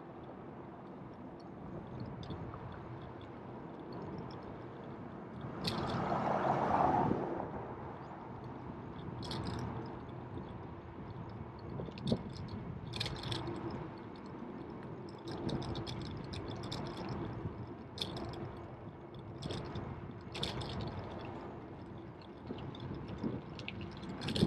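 Ride noise from a bicycle on a paved path: a steady rush of rolling and wind noise with scattered clicks and rattles, and a louder rush of noise about six seconds in.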